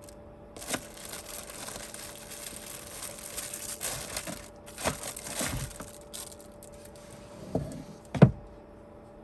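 Crinkling and rustling handling noise for several seconds, with a few sharp knocks, the loudest one near the end, over a faint steady hum.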